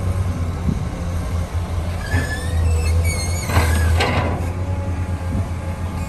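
Diesel dump truck engine running steadily with its tipper bed raised, unloading soil and rock. Around two to four seconds in come a high wavering squeal and a brief rush of sliding material.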